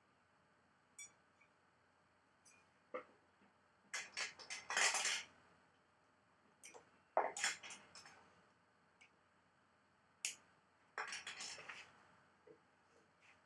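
Handling noises at a badminton racquet stringing machine: scattered clicks and taps, with a few short scraping bursts of string and clamps being worked by hand.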